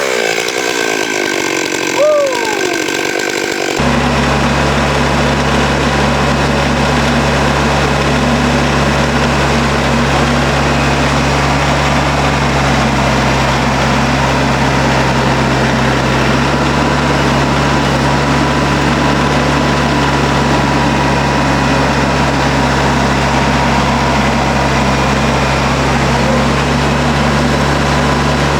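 A chainsaw revving briefly, its pitch falling away about two seconds in; then, from about four seconds in, a heavy engine idling steadily.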